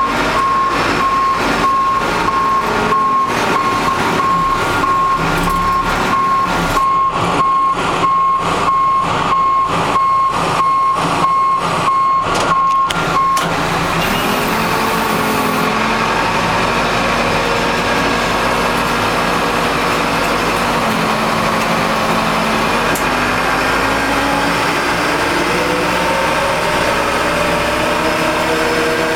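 Backhoe engine running with its reversing alarm beeping steadily, the beeping stopping about halfway through; near the end the engine speeds up, its pitch rising.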